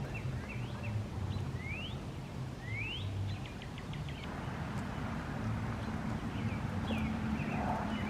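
Birds chirping, with a few quick rising calls, over a steady low rumble.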